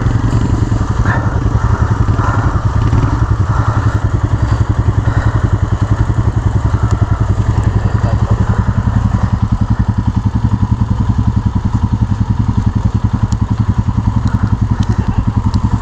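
Motorcycle engine idling steadily, with a fast, even pulsing beat.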